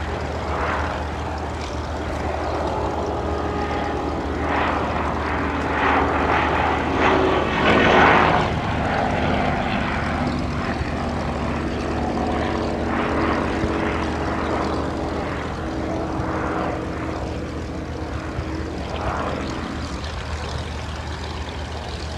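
Bristol F.2B Fighter biplane's Rolls-Royce V12 aero engine running as it flies past. The propeller drone grows louder to a peak about eight seconds in, then slowly fades.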